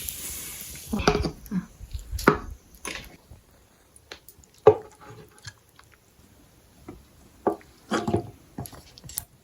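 Scattered small clicks, knocks and squishy handling sounds, about a dozen separate sharp taps with quiet gaps between them, typical of dishes, utensils and food being moved about on a table.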